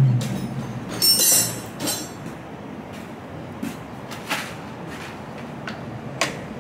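Metal clinks and clicks of a wrench working a hydraulic hose fitting on a marine gearbox: a sharper clatter about a second in, then a few single clicks, over a steady shop background noise.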